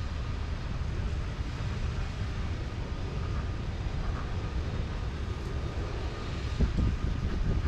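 Wind buffeting the microphone: a steady low rumble that turns a little gustier and louder near the end.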